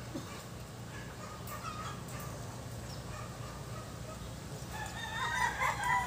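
A rooster crowing, loudest from about five seconds in, with fainter calls earlier, over a steady low hum.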